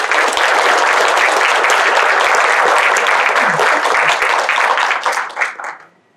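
Audience applauding, a dense patter of many hands clapping that dies away about five and a half seconds in.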